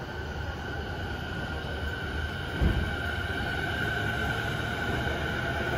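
JR East E217 series electric train starting to pull away, with a steady whine from its electrical equipment that grows a little louder. A single low thump comes about two and a half seconds in.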